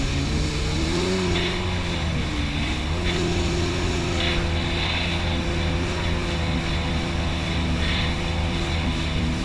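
Personal watercraft (wave runner) engine running steadily at cruising speed, its pitch wavering briefly about a second in. Water splashes against the hull a few times.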